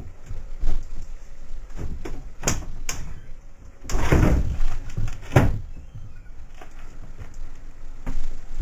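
A wooden sash window being pushed open from outside: scattered knocks and rattles, then the sash scraping up in its frame about four seconds in, the loudest sound. A bump near the end as someone climbs in over the sill.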